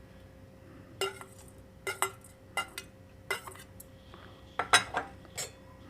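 A metal spoon clinking against a cooking pot as cloves are added to the water: a series of about nine short, light metallic clinks, irregularly spaced, the loudest near the end.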